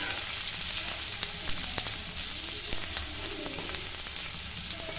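Sliced bitter gourd (karela) sizzling in hot oil in a wok while a spatula stirs it, with a steady hiss and occasional sharp clicks of the spatula against the pan.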